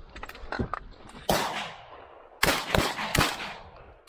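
Shotgun shots fired at a passing duck: one blast a little over a second in, then three more in quick succession, each with a short echoing tail.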